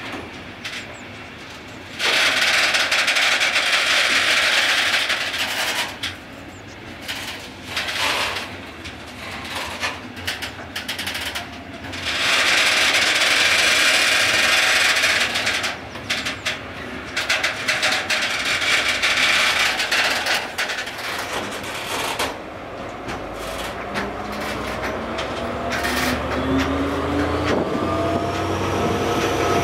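Freight train of hopper wagons rolling past, with wheel-on-rail noise that swells loud three times in long rushes. Over the last several seconds a rising engine tone comes in under it.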